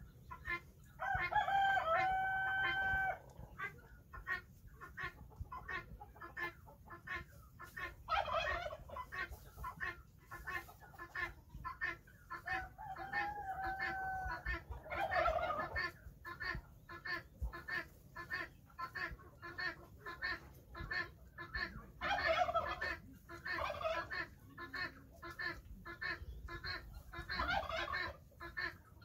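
Farmyard chickens: hens clucking in short rapid notes throughout, with a rooster crowing about a second in and again around the middle. Louder calls break in every several seconds.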